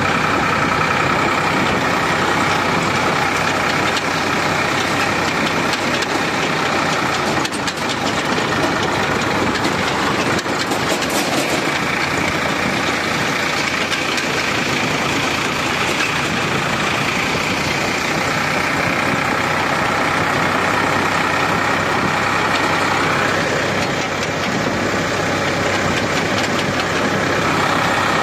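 Ford 4000 tractor engine running steadily while the tractor drives along a dirt track, heard close up from the driver's seat.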